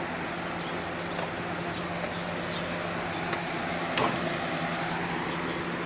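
Sausages sizzling on a grill as a steady hiss over a constant low hum. Faint short chirps from birds come and go, and a single sharp click sounds about four seconds in.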